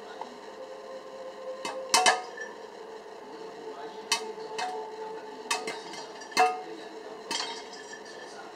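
Popcorn kernels popping in a halogen convection oven: about nine sharp pops at uneven intervals over the steady hum of the oven running.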